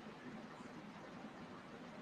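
Faint steady hiss with a low hum: microphone room tone, with no distinct sound event.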